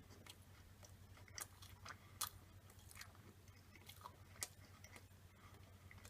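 Faint chewing of a mouthful of chicken burger, with several short, sharp mouth clicks.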